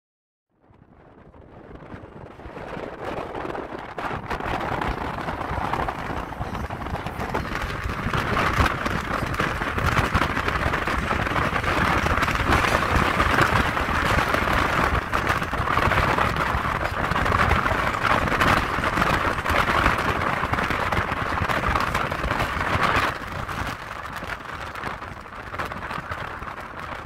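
A steady rush of wind and road noise from a car driving at speed. It fades in over the first few seconds and drops a little near the end.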